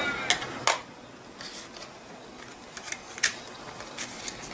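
Sharp plastic clicks and taps from hands handling small laptop parts: two loud clicks in the first second, a few fainter taps, and another sharp click a little past three seconds.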